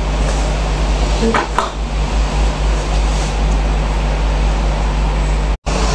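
Steady background hiss and low electrical hum, like air conditioning or room noise, with a brief dropout near the end.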